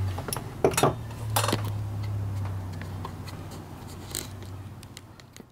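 Light, scattered metallic clicks and taps from handling tools and rear drum-brake parts, over a steady low hum that slowly fades.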